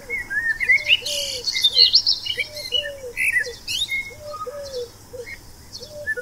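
Outdoor birdsong: a dove coos a three-note phrase, short-long-short, repeating about every second and a half, while small songbirds chirp and trill higher above it.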